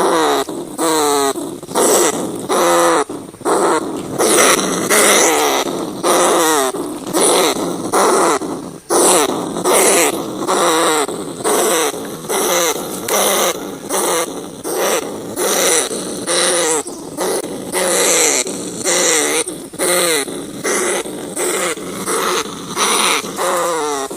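Field rats squealing: a long run of calls, about one a second, each a wavering cry that often falls in pitch.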